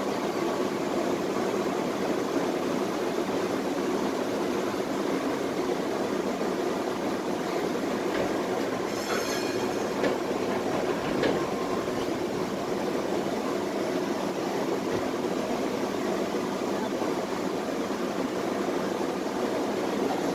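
Tatra T3SU tram running on its rails, heard from inside the car: a steady rumble of wheels and running gear, with a brief rattle about nine seconds in and a couple of light knocks shortly after.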